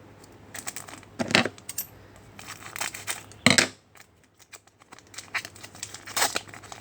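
Trading card pack wrappers crinkling and tearing as packs are opened and cards handled: a few short, sharp rustles, the loudest about a second and a half and three and a half seconds in.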